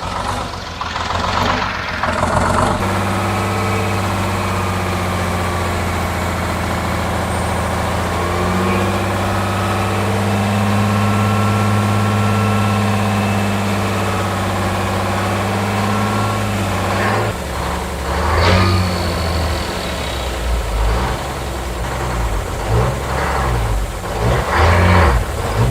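Engine of an old Chevrolet Kodiak truck, freshly restarted after decades sitting, running steadily. It picks up speed a little about nine seconds in and holds it. About seventeen seconds in, the running turns uneven and lumpy.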